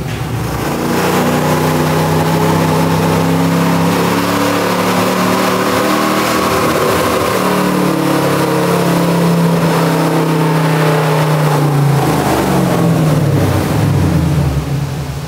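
LS V8 engine in a swapped Toyota 4Runner doing a full-throttle pull on a chassis dyno, held at high revs for about eleven seconds, then winding down near the end.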